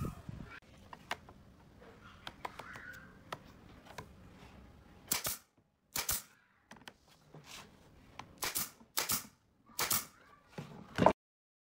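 Hammer knocking on pine boards: a few faint clicks, then about nine sharp knocks from about five seconds in, several of them in quick pairs. The sound cuts off suddenly near the end.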